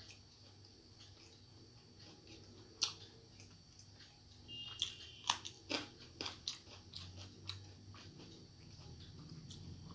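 Close-up sounds of someone eating by hand: fingers working rice on the plate, then, about halfway through, a run of crisp crunches and chewing clicks as she bites into raw salad.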